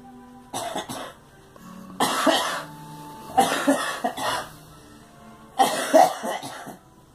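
A girl coughing in four short fits, each a quick run of two or three coughs.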